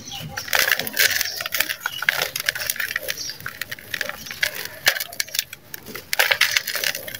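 Dry sand-cement block crunching and crumbling in bare hands as it is broken apart and the chunks crushed into grit: dense, gritty crackling that comes in bursts.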